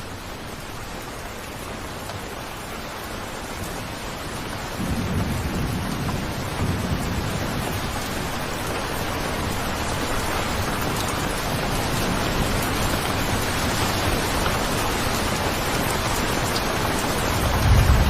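Steady rain falling, slowly growing louder, with a low rumble of thunder coming in about five seconds in and a stronger one near the end.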